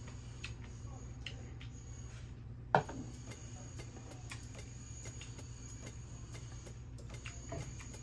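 Eating sounds at a table: small scattered clicks of chopsticks against a rice bowl, with one sharp knock about three seconds in, over a steady low hum.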